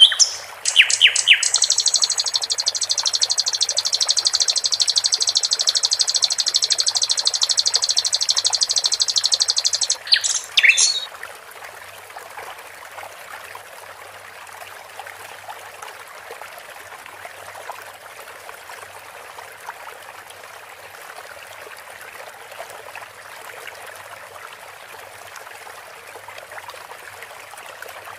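Sikatan londo (common nightingale) song: a few sharp notes, then a long, fast trill of rapidly repeated high notes lasting about nine seconds, closed by a couple of quick notes. After that only the steady trickle of running water remains.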